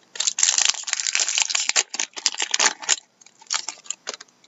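Shiny foil wrapper of a hockey card pack crinkling as it is torn open and the cards pulled out: dense crackling for about three seconds, then a few shorter crackles.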